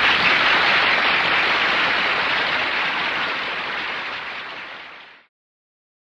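Audience applauding after the song, fading down and cutting off suddenly about five seconds in.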